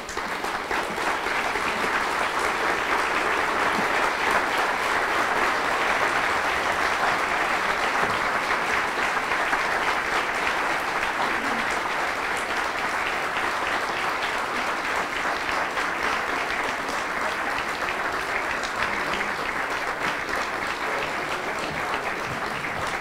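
An audience applauding, starting all at once and easing off a little near the end.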